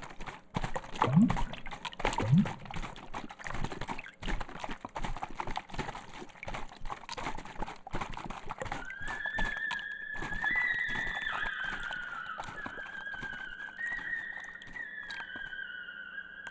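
Sound-design soundtrack: a busy run of clicks and knocks with two short low upward swoops, then from about nine seconds in a high, sustained whistle-like tone that steps and slides slowly down in pitch.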